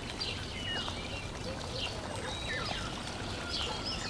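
Nature ambience: many birds chirping in short, quick calls over a steady rush of running water.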